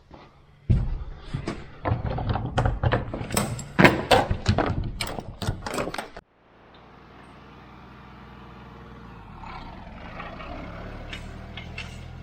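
Loud irregular clattering knocks and rumble for the first half, then, after a sudden cut, a farm tractor's diesel engine running steadily and slowly getting louder.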